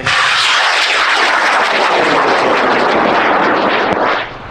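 Experimental L1369 high-power solid rocket motor firing at liftoff: a loud rushing noise that starts abruptly and cuts off about four seconds in at burnout.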